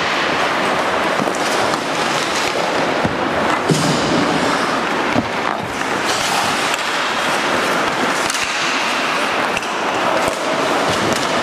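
Ice hockey play on a rink: skates scraping and carving the ice under a steady noise, with scattered sharp clacks and knocks from sticks, puck and boards.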